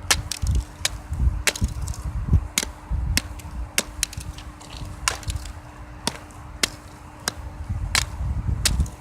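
Repeated sharp hits, more than a dozen at an uneven pace of about one or two a second, from a fidget toy being beaten with a stick to smash it, with low thuds mixed in.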